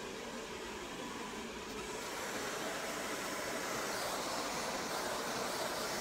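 Hand-held hair dryer blowing steadily, getting louder about two seconds in.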